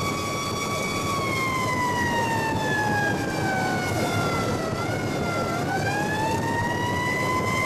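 Fire truck's Federal Signal siren heard from inside the cab, holding a steady high wail, then winding slowly down over about four seconds and climbing back up to full pitch near the end. Engine and road noise run underneath.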